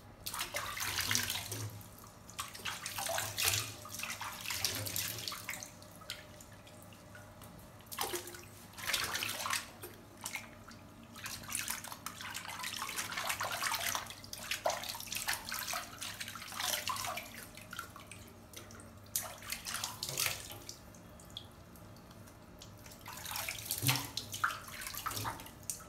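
Water splashing and swishing in a stainless-steel sink as hands wash a baby monkey, in irregular bursts a few seconds long with short quieter gaps between them.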